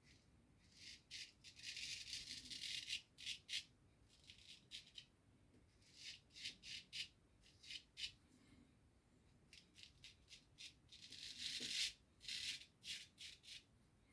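Razor scraping through lathered stubble in runs of short, quick strokes, with brief pauses between runs, during the second pass of a wet shave.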